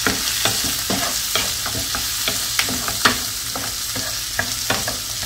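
Chopped onions sizzling in hot coconut oil, with a wooden spatula stirring them around a nonstick pan in strokes about three a second.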